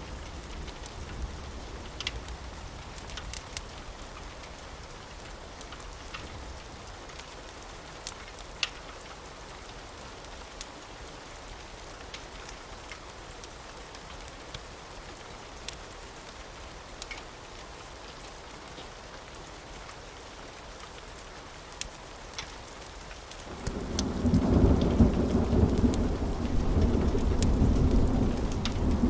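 Steady rain with scattered sharp clicks, then near the end a loud, low rolling rumble of thunder swells in and keeps going.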